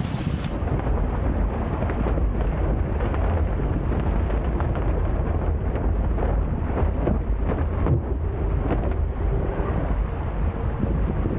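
Wind buffeting the microphone in a heavy low rumble, with water rushing and spattering against the hulls of a Hobie Tiger F18 catamaran under sail.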